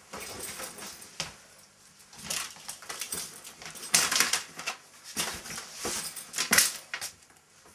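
Rustling and knocking of a fabric backpack being packed and objects on a desk being grabbed, in irregular bursts, loudest about four seconds in and again about six and a half seconds in.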